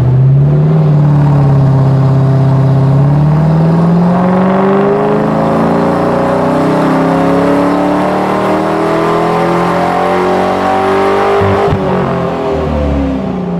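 Ford Mustang GT's 4.6-litre V8 making a wide-open-throttle pull on a chassis dynamometer. The revs climb steadily for about eleven seconds, then the throttle closes and the revs fall away.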